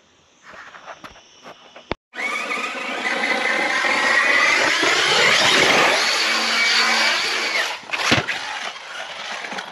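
High-pitched whine of the Arrma Fireteam EXB RC truck's electric motor and drivetrain at full throttle, rising in pitch and then falling on the run-up to a jump, with a sharp thump about eight seconds in.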